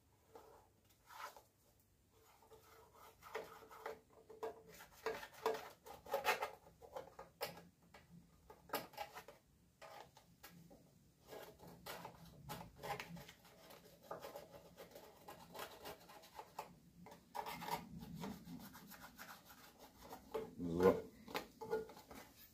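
A pointed steel tool scratching along the edge of a cardboard template on rusty sheet steel, scribing the outline of the section to be cut out for a welded patch. Short, irregular scraping strokes, with a louder scrape near the end.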